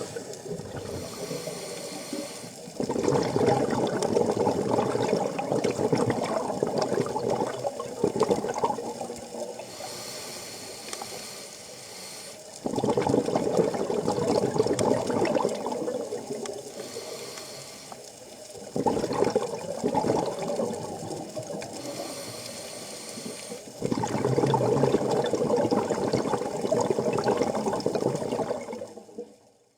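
Water bubbling and rushing, coming in four long surges of several seconds each with quieter stretches between.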